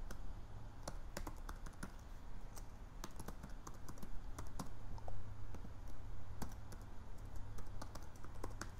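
Typing on a computer keyboard: irregular key clicks, several a second, as a login email and password are entered. A low steady hum runs underneath.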